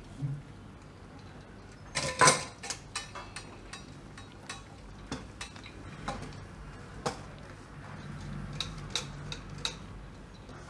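A steel spoon clinking and knocking against a metal strainer and vessel while fresh chhena curds are spooned into a cotton cloth. A cluster of sharper knocks comes about two seconds in, followed by lighter, scattered clinks.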